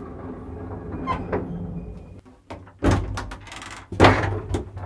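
Folding metal lattice lift gate being pulled open: a low rumble, then a loud clank about three seconds in and another about four seconds in, each followed by a metallic rattle, stopping abruptly at the end.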